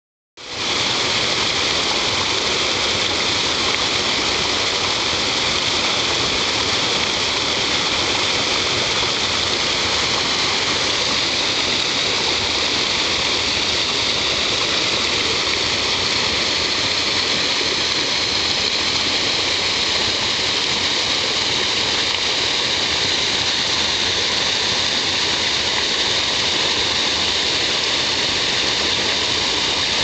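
Small waterfall on a mountain creek, water spilling over rocks into a pool with a steady, unbroken rushing splash.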